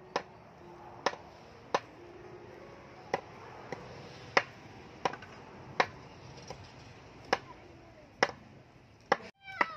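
A meat cleaver knocking on a wooden chopping board in irregular, sharp chops, about one a second, with two quicker strokes near the end.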